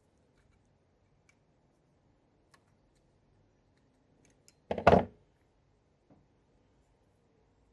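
Pliers working on a small metal pressure gauge fitting: a few faint ticks, then one loud, short clatter of sharp clicks and a scrape about five seconds in, as the stiff part is worked loose.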